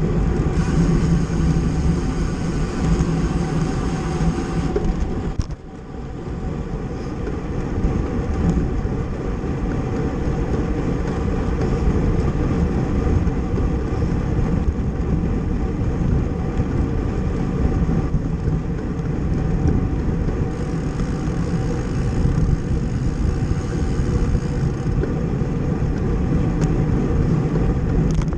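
Steady wind rumble and buffeting on the microphone, mixed with tyre and road noise from a racing bicycle at speed. It eases briefly about five seconds in.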